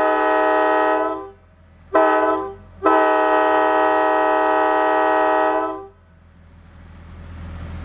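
Multi-chime locomotive air horn sounding a chord. A blast ends about a second in, a short toot follows, and then comes a blast of about three seconds. A low engine rumble rises near the end.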